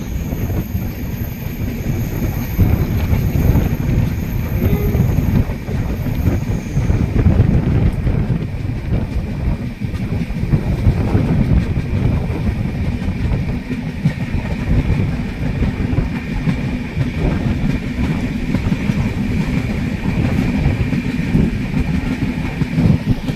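Passenger train coaches running along the track, heard from inside: a steady rumble and clatter of wheels on the rails. A faint steady high whine rides over it through the later part.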